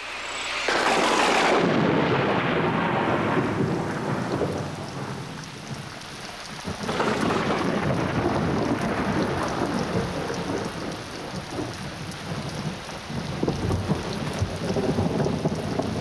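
A large flock of white cockatoos screeching together as a dense, continuous din. It swells about a second in, eases a little midway, then rises again.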